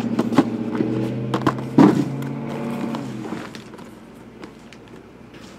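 Shrink-wrapped cardboard hobby boxes being handled and set down on a table: several knocks, the loudest a thump about two seconds in. Under them a steady low hum fades out after about three seconds.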